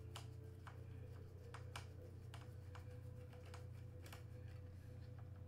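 Scattered light clicks and ticks, about a dozen at irregular intervals, as parts of a Tavor 21 airsoft rifle's body are handled and worked apart by hand, over a steady low hum.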